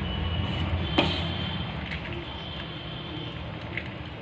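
Steel ladle stirring and scooping in a steel pot of pasta cooking water, with one sharp clink of the ladle against the pot about a second in, over a steady low rumble.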